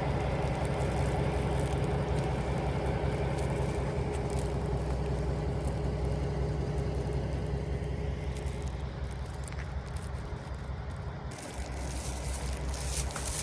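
Diesel railcar running along the line, a steady engine hum with a held tone, played back at double speed. It grows gradually fainter over the second half.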